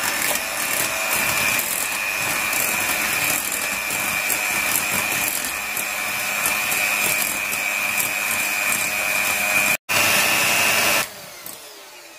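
Electric hand mixer running at a steady speed with a high, even whine, its beaters whisking egg, sugar and oil batter in a glass bowl. There is a momentary break just before 10 s in, and the motor stops about 11 s in.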